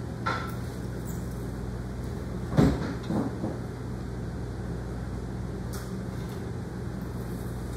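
Metal clicks and clunks from a saw-sharpening machine's file carriage and bar being worked back and forth by hand during setup, the loudest knock about two and a half seconds in, over a steady low hum.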